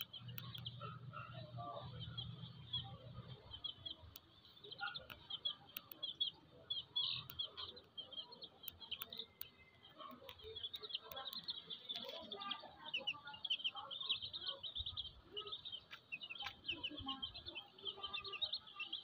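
Baby chicks peeping in a constant stream of short, high chirps, with a brooding hen's soft low clucks now and then.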